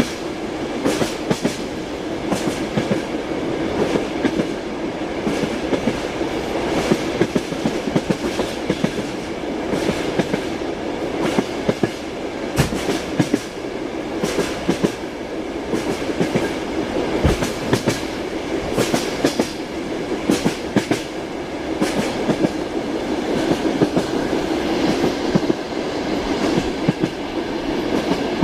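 Passenger train wheels clacking over rail joints while running at speed, heard from inside the carriage: repeated knocks, often in close groups, over a continuous rolling rumble.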